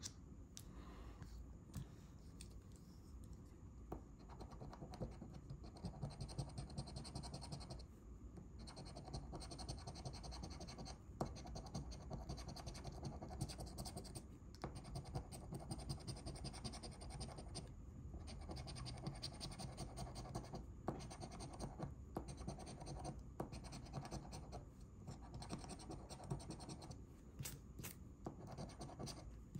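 Faint scratching of a scratch-off lottery ticket's coating, in runs of short strokes broken by brief pauses.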